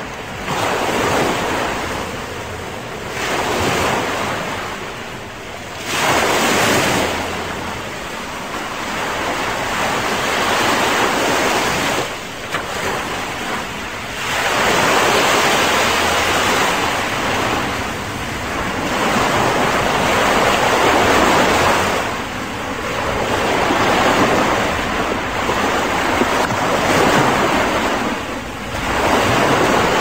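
Small ocean waves breaking and washing up a sandy beach: a continuous rush of surf that swells with each wave every few seconds.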